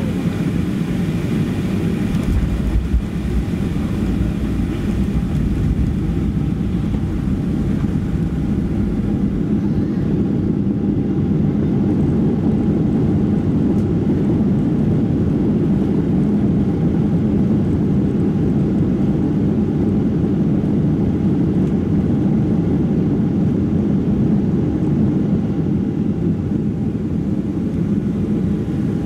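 Cabin noise of a Boeing 737-400 with CFM56-3 engines slowing on the runway after landing: a steady, loud rumble of engines and wheels on the concrete. A higher hiss in the noise fades after about nine seconds as the jet slows, and there is one short knock about three seconds in.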